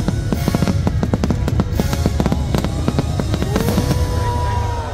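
Fireworks bursting and crackling in rapid, irregular succession over a steady low rumble, with loud show music playing alongside.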